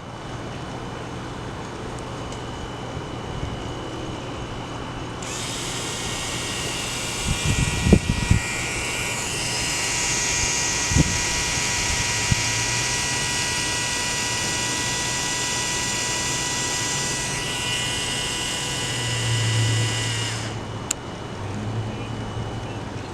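Small Lego Technic Power Functions electric motor running, a steady whine that starts about five seconds in and cuts off suddenly some fifteen seconds later. A few short knocks come while it runs.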